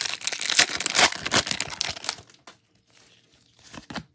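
Foil wrapper of a Bowman baseball card pack being torn open and crinkled, a dense crackling for about two seconds. A few light clicks of cards being handled follow near the end.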